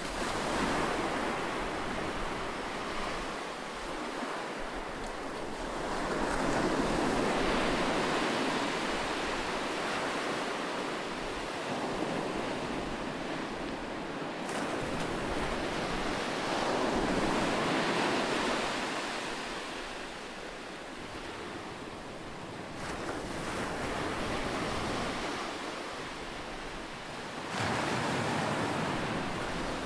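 Rushing, surf-like noise that swells and ebbs in slow surges: rising about a second in, again around six to ten seconds, around seventeen seconds, and near the end, with no distinct clicks or tones.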